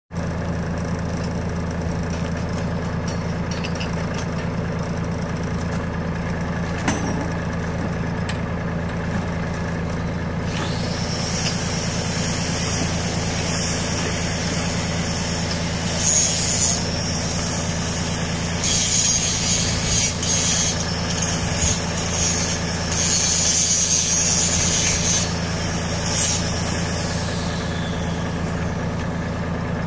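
Japanese compact tractor's engine idling steadily under the sprayer. A high hiss joins it about ten seconds in, swells several times in the second half, and fades out near the end.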